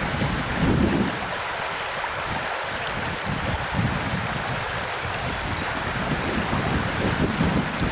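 River water rushing in a steady hiss, with wind buffeting the microphone in irregular low gusts.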